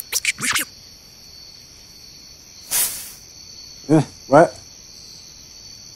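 Steady cricket chirring of a night ambience, with a few quick clicks at the very start and one short swish of noise a little under three seconds in.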